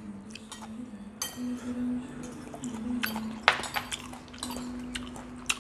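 Spoons clinking against ceramic bowls and plates, a handful of sharp clinks, mixed with close chewing of bamboo shoots dipped in fermented fish sauce, over a faint steady hum.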